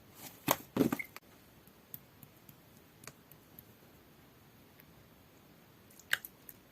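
Jelly-textured clear slime being pressed and poked by hand, giving a quick run of sharp clicks and pops in the first second, then faint ticks and one more loud click near the end.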